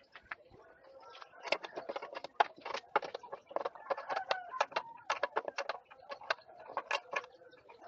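Irregular series of short sharp clicks and knocks, several a second, with birds calling faintly in the background.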